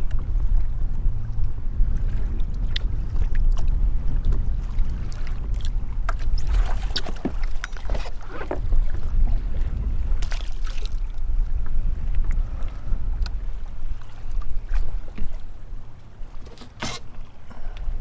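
Wind rumbling on the microphone out on open water in a kayak, with scattered sharp clicks and knocks of fishing tackle being handled, most in the middle and one strong one near the end.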